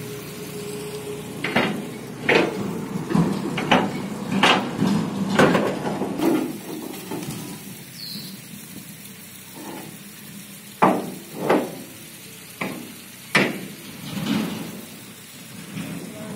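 A steel pry bar striking and levering against concrete hume pipes on a truck bed: about a dozen sharp clanks and knocks, in a quick run over the first six seconds, then a pause, then a second run a few seconds later.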